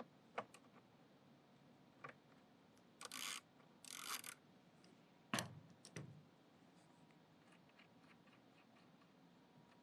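Hand tool working a 10 mm nut off a vacuum motor's ground-wire stud: a few light metal clicks and clinks, two short rasping bursts about three and four seconds in, and a duller knock a little after five seconds, then near silence.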